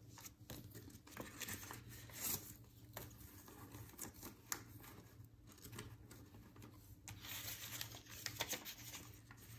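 Faint rustling and flicking of paper banknotes as a stack of bills is fanned and counted by hand, with small scattered taps and crinkles.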